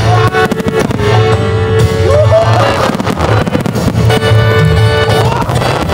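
Loud pop music with a steady bass line and long held notes, with firework bursts mixed in beneath it.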